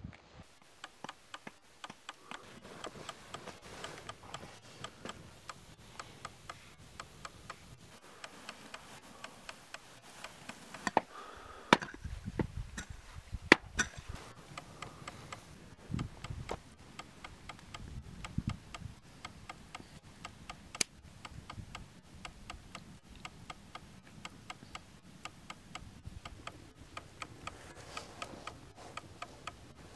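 Steady, even clock-like ticking, a few ticks a second, with a handful of louder sharp knocks and dull low thuds near the middle.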